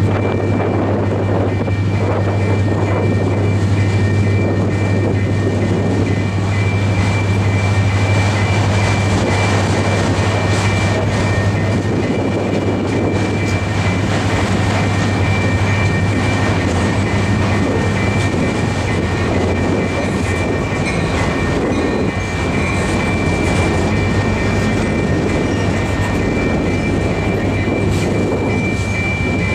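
Freight train of autorack cars rolling past at a steady speed: continuous rumble and rattle of steel wheels on the rails, with a thin, steady high whine over it.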